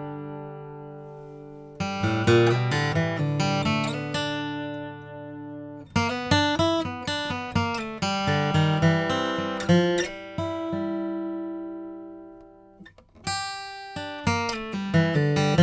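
Martin D-18 Modern Deluxe dreadnought acoustic guitar with a torrefied top. A last strummed chord rings and fades for about two seconds. Then come flatpicked single-note runs and bass-string lines, with notes left ringing between phrases. A short pause with a couple of faint string clicks comes near the end, before the picking starts again.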